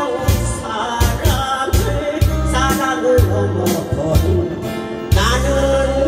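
A woman sings a Korean trot song into a microphone, accompanied by acoustic guitar over a backing track with a steady bass-drum beat.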